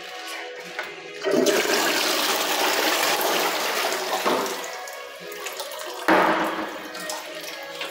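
Wall-hung toilet with a concealed cistern flushing: a loud rush of water starts about a second in and eases off around four seconds, then a second sudden rush comes about six seconds in.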